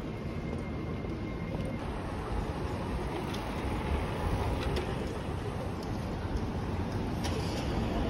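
Busy city street ambience: a steady rumble of road traffic, with a few faint clicks.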